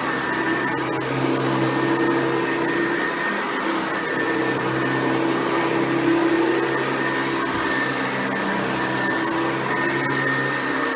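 Hoover Convertible U4349 upright vacuum cleaner running steadily while vacuuming, its motor giving an even whine over a rushing airflow.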